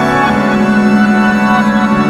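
Background music with long held chords.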